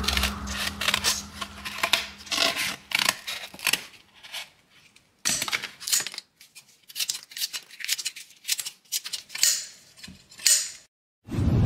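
Restored Robuso Solingen tailor's shears snipping through cardboard in a run of crisp cuts, then slicing a piece of thin cloth near the end, as the blades are tested for sharpness.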